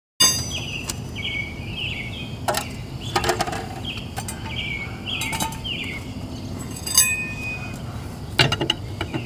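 A handful of sharp clinks, the loudest about seven seconds in, over repeated short chirping in the background.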